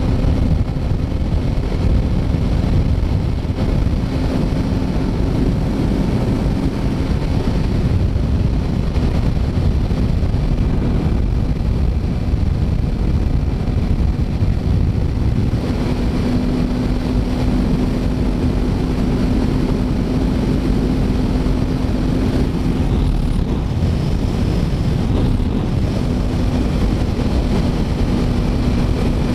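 Motorcycle riding at freeway speed: a steady rush of wind over a helmet-mounted microphone, with the 2008 Yamaha YZF-R6's inline-four engine running at a steady speed underneath. The engine hum holds one pitch and comes through more clearly in the second half.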